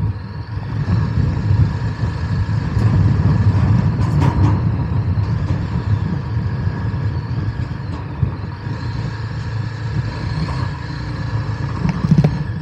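Motorcycle ridden across a steel truss bridge: the engine running under a dense, uneven rumble from the tyres on the bridge deck and wind on the microphone, with a sharp knock near the end.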